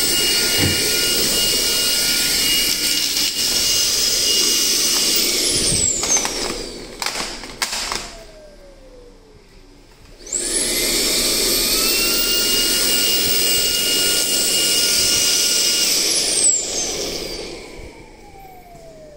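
Makita CL003G 40V max cordless cyclone stick vacuum running with a steady whine. About five seconds in it is switched off and winds down with a falling whine and a few clicks. About ten seconds in it starts again with a rising whine, runs steadily, and near the end is switched off and winds down again.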